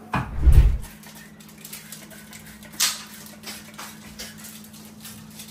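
Trigger spray bottle of insecticide squirting into a kitchen cabinet: a heavy dull thump about half a second in, then a sharp spray hiss near three seconds, followed by a few fainter short squirts. A low steady hum runs underneath.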